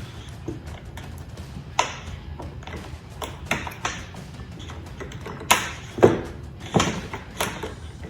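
Scattered sharp clicks and knocks of hand tools and chainsaw parts being handled during disassembly, about half a dozen of them, the loudest a little past halfway, over a low steady hum.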